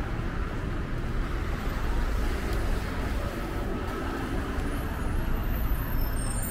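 Steady road traffic noise as cars drive past on a city street, a continuous low rumble with no single loud event.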